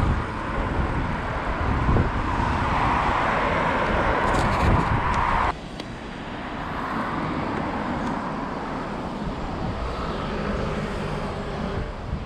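Wind rushing over an action camera's microphone with road noise while riding, cutting off abruptly about five and a half seconds in to a quieter, steady outdoor hiss.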